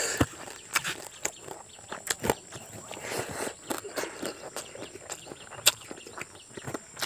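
Close-miked eating sounds: a man chewing mouthfuls of rice and crab curry eaten by hand, with irregular wet mouth clicks and smacks. One sharper, louder click comes about five and a half seconds in.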